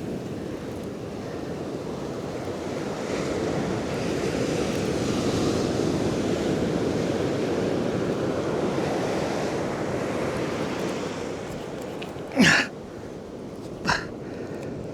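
Waves washing in on the shore, a steady rush of surf that swells and eases over several seconds. A short, loud sound cuts through about twelve and a half seconds in, and a smaller one about a second and a half later.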